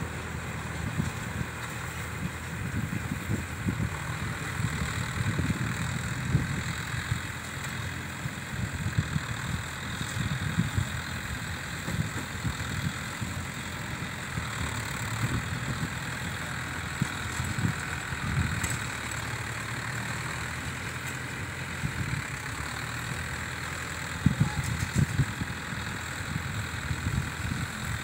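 Tractor diesel engine running steadily while it pulls a mini round baler through loose straw, with irregular knocks and clatter from the working machinery, a cluster of sharper knocks near the end.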